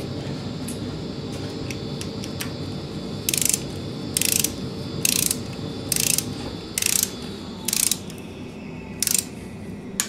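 Ratchet wrench clicking in short back-and-forth strokes, about one a second and starting about a third of the way in, as bolts are run down on a Ford flathead V8 block.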